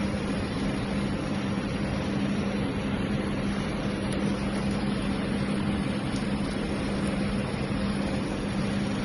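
Steady machinery background noise: an even hiss with a constant low electrical-sounding hum underneath, unchanging throughout.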